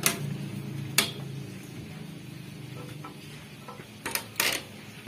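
Sharp metallic clinks of a steel lifting chain being handled where it is hooked around a car engine and transmission: one at the start, one about a second in, and two close together near the end.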